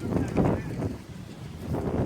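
Gusty wind buffeting the microphone, an uneven low rumble that swells and drops.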